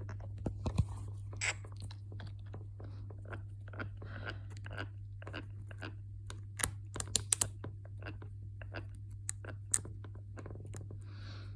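Metal paperclip scraping and clicking inside an iPad charging port, digging out packed dirt: irregular small scratches and ticks over a steady low hum.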